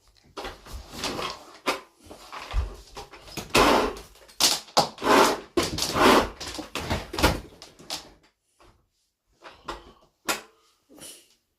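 A vacuum cleaner's cord being yanked again and again like a lawnmower pull-start, with a quick run of rasping, clattering pulls that thin out to a few last tugs near the end. The vacuum itself does not start.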